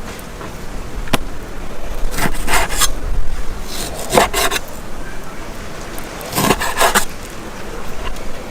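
Three short bursts of rasping scraping, roughly two seconds apart, with a single sharp knock about a second in.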